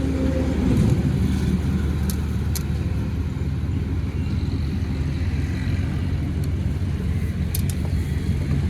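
An engine running steadily with a low, even hum, and a few light clicks.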